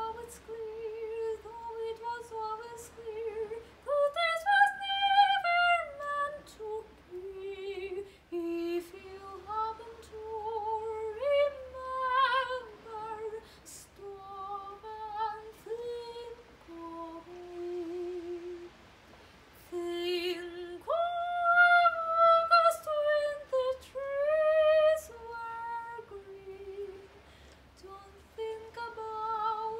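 Solo female soprano singing a musical-theatre song unaccompanied, with vibrato on sustained notes. The voice climbs to long, loud high phrases about four seconds in and again about twenty-one seconds in.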